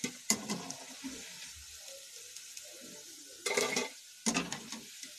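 Urad dal bondas deep-frying in hot oil in a kadai: a steady sizzling hiss. It briefly grows louder three times: just after the start, and about three and a half and four and a half seconds in.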